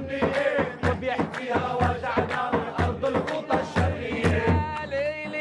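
Arabic folk song: a group of men clapping in rhythm to a hand drum, about three beats a second, with male voices chanting. Near the end the clapping and drumming stop and a held, wavering melodic line comes in.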